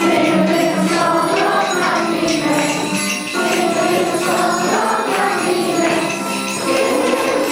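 A group of children singing a song together, with jingle bells shaken along in time.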